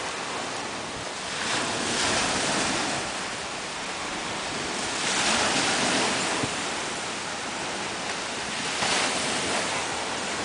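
Small sea waves washing onto a sandy shore. The surf swells and fades about three times.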